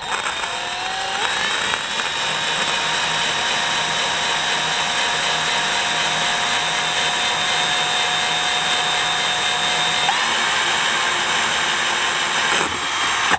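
Cordless drill boring a hole through a glazed ceramic tile, the motor spinning up at the start and then running at a steady whine. About ten seconds in the pitch climbs, and the drill stops near the end.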